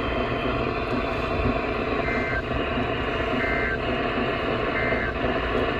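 EAS end-of-message SAME data bursts: three short two-tone warbling chirps about a second and a half apart, which mark the end of the alert. They play over steady radio hiss.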